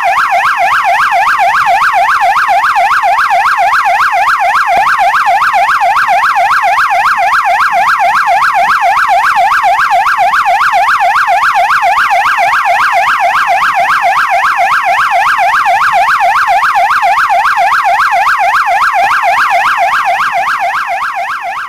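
Electronic police siren in a fast yelp, its pitch sweeping up and down about three to four times a second. It begins to fade out near the end.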